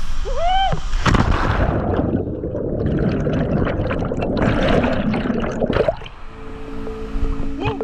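A person's short cry as they jump, then a loud splash into a waterfall pool about a second in, followed by the churning, gurgling rush of bubbles heard underwater. The water sound stops at about six seconds and background music comes in.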